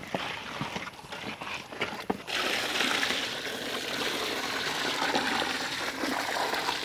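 Water poured in a steady stream into a large aluminium pot of raw chicken pieces, starting a little over two seconds in. Before it, a few light knocks as the chicken pieces are handled in the pot.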